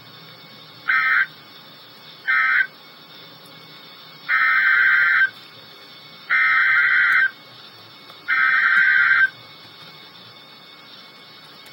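Emergency Alert System SAME digital data bursts over NOAA Weather Radio, a buzzing digital warble. First come the last two short end-of-message bursts. Then three longer header bursts follow, each about a second long and two seconds apart, which announce the next warning.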